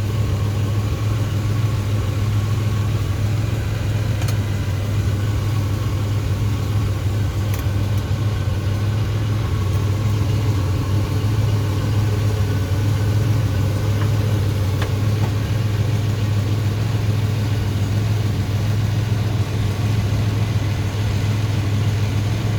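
1985 Chevrolet S10's 2.8-litre V6 engine running steadily at idle, with a knocking noise that the owner cannot pin down.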